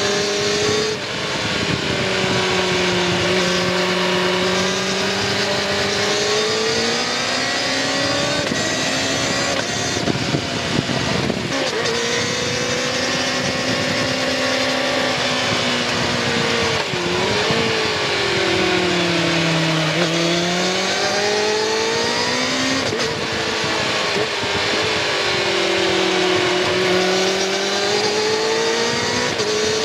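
2019 Kawasaki Ninja ZX-6R 636's inline-four engine through its stock exhaust while riding. The engine note rises and falls several times as the throttle is opened and rolled off, with a rougher, noisier stretch about ten to twelve seconds in.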